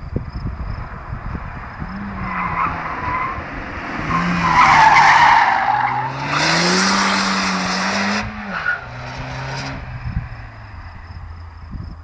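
Volkswagen Scirocco 1.4 TSI (160 hp, turbocharged and supercharged four-cylinder) with an Inoxcar aftermarket exhaust taking a hairpin hard. Its tyres squeal through the bend about four to six seconds in. The engine then revs up loudly as it pulls out of the corner, drops sharply in pitch just after eight seconds, and fades away.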